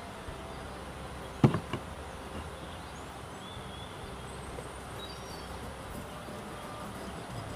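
Stone pestle knocking against a stone mortar: one sharp knock about a second and a half in, followed quickly by two lighter ones, then soft grinding of the dry flakes in the bowl. Faint bird chirps in the background.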